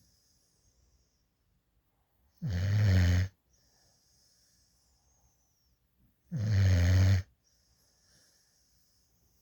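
Black Mouth Cur and Labrador mix puppy snoring in deep sleep: two loud snores, each about a second long, a little under four seconds apart, with faint breathing between them.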